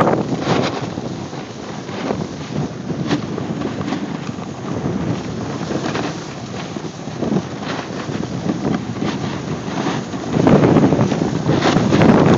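Wind rushing over a phone's microphone during a snowboard run downhill, mixed with the snowboard scraping over packed snow. It swells louder about ten seconds in.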